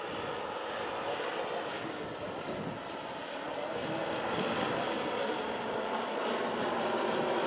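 The twelve 10 cc OS model engines of a 1:10 scale Dornier Do X flying boat model running together in flight, a dense multi-engine drone that grows gradually louder as the model approaches and passes overhead.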